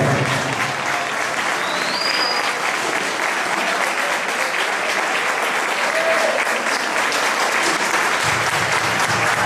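Audience applauding steadily, with a few voices calling out in the crowd.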